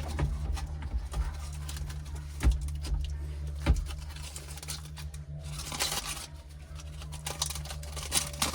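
Scattered light clicks and knocks of parts being handled while a car stereo is fitted into the dash, over a steady low hum.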